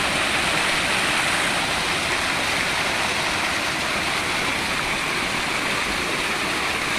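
Water pouring over a small concrete ledge into a shallow stream. The rush is steady and even throughout.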